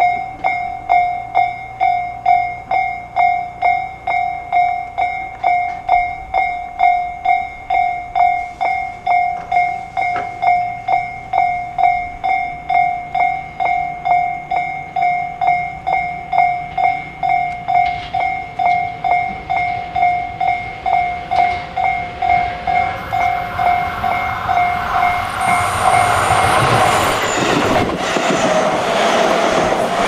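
Railway level-crossing alarm ringing, an electronic two-tone ding repeating about one and a half times a second. From about 22 seconds in, a Tobu 9050 series electric commuter train comes closer with growing rumble and wheel noise, which drowns out the alarm as the train passes close by near the end.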